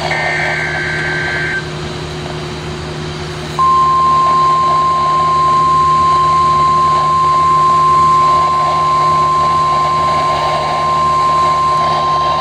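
Emergency Alert System SAME header data burst, a short buzzy digital chirp lasting about a second and a half. About two seconds later the NOAA Weather Radio warning alarm tone starts: one steady high tone held for about nine seconds. It signals that a warning message is about to be read.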